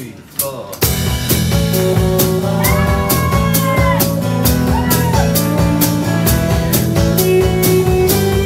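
Live rock band playing: after a few sharp drum hits, the full band comes in loud about a second in, with drums, bass and guitars, and a melody line that bends in pitch partway through.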